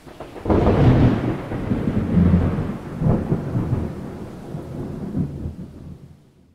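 Thunder sound effect: a deep rolling rumble that swells about half a second in, surges again around three seconds, then dies away.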